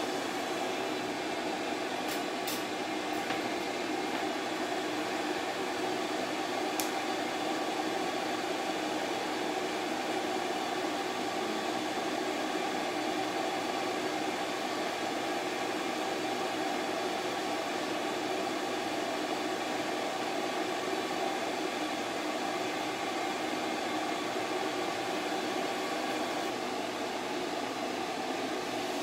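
Dog grooming dryer blowing steadily: a constant rushing hum with a few fixed tones, unchanged throughout. A few faint clicks in the first seven seconds.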